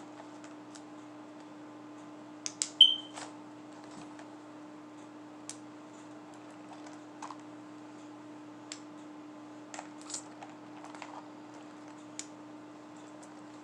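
Small plastic beads clicking and rattling as hands pick through a plastic bead box, in scattered light clicks; the loudest is a quick cluster of clicks with a brief high squeak about two and a half seconds in. A steady low hum runs underneath.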